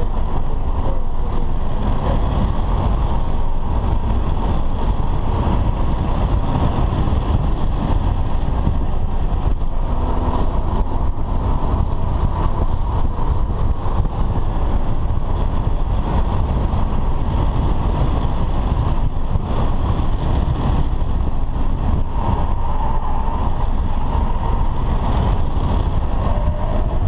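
BMW F10 5 Series saloon at track speed, heard from inside the cabin: a loud, steady rush of engine, tyre and road noise.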